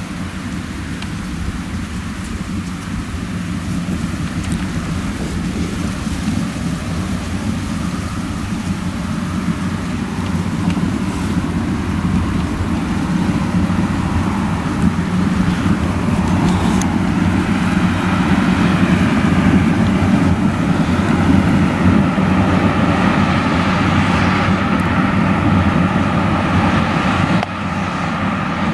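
Claas Lexion 760 TT combine harvester with a nine-row Geringhoff corn header running steadily while harvesting maize, its drone growing louder as it draws closer.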